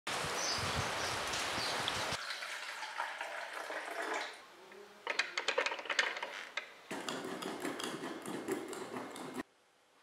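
Rain falling for about two seconds, then short cuts of kitchen sounds: a drip coffee maker gurgling and crackling as it brews into its glass carafe, with dense clicks and pops, followed by another noisy stretch that cuts off about nine and a half seconds in.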